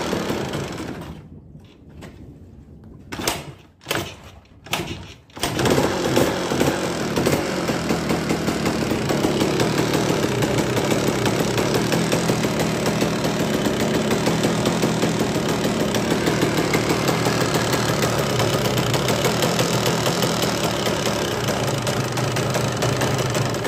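Yamaha DT200 two-stroke motorcycle engine sputtering in a few short bursts, then catching about five seconds in and running steadily with a very loud knocking from inside the engine. The owner takes it for play in a crankshaft bearing or in the engine case.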